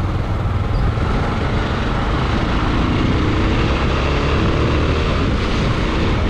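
Bajaj Pulsar 220F's single-cylinder engine running on the move, under a steady low rumble of wind and road noise.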